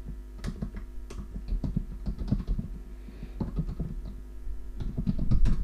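Typing on a computer keyboard: a run of irregular key clicks, with a cluster of louder clicks near the end.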